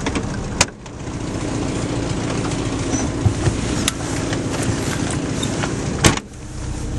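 A Zastava 101's four-cylinder petrol engine running steadily, heard from inside the car's cabin. Two sharp clicks come about half a second and six seconds in, each followed by a brief dip in the engine sound.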